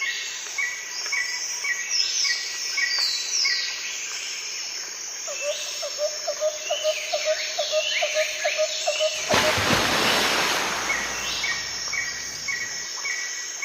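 Several birds chirping and calling over one another: short repeated chirps, falling whistled notes and a quick run of notes mid-way. About nine seconds in, a burst of rushing noise rises over them for about two seconds.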